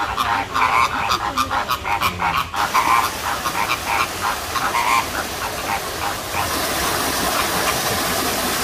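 A flock of flamingos honking, a rapid run of goose-like calls for about the first five seconds. The calls then give way to a steady rushing hiss.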